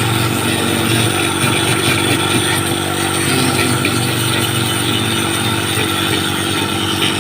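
A small motor running steadily at an even speed.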